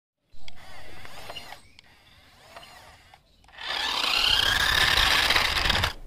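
Small electric motor and gears of a toy remote-control car whining as it drives. There is a short burst near the start, then a longer, louder run from about halfway that stops suddenly just before the end.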